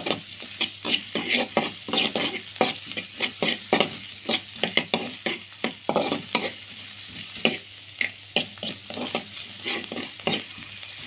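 Metal spatula scraping and tapping against a metal wok in quick, irregular strokes while chopped garlic and ginger sizzle lightly in oil, sautéing until fragrant and golden.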